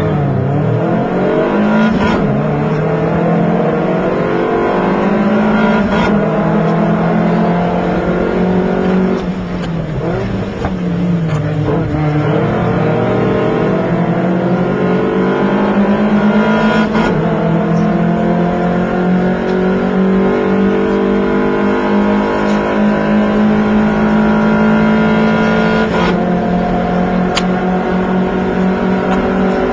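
A Lotus Elise's four-cylinder engine, heard from inside the cockpit, revving hard under racing acceleration. Its pitch climbs and falls back again and again as the car works through the gears. Around ten seconds in the revs drop and blip down, then climb again.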